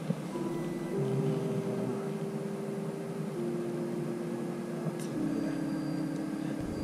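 A steady low engine drone whose pitch steps up and down a few times, with a short click near the start.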